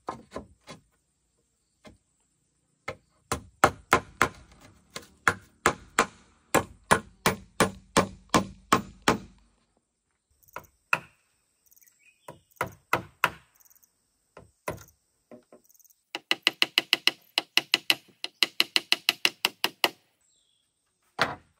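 Hammer driving nails into wooden boards. A run of strikes at about three a second is followed by a few scattered blows, then a fast, even run of sharper, ringing strikes at about five a second near the end.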